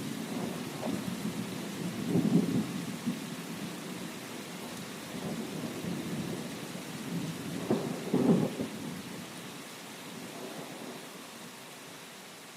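Steady rain with low rolls of distant thunder, the strongest about two seconds and eight seconds in; the storm fades toward the end.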